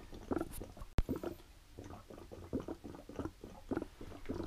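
Water-filled S-shaped airlocks on buckets of fermenting sugar wash bubbling in irregular little pops and glugs, as carbon dioxide from the yeast pushes through the water: the sign of active fermentation. A single sharp click about a second in.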